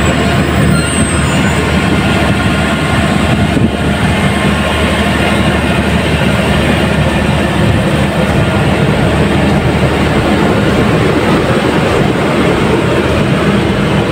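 Steady, loud drone of a passenger train standing at the platform, with a low, even hum typical of the diesel generator sets in its power van running to supply the coaches.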